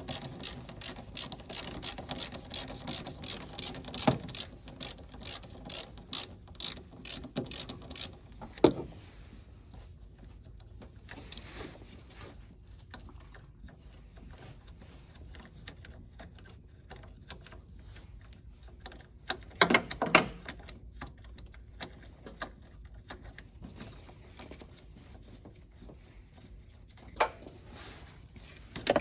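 Socket ratchet wrench clicking rapidly as a 10 mm radiator-brace bolt is backed out, then slower, sparser clicks. A short loud clatter of metal comes about twenty seconds in.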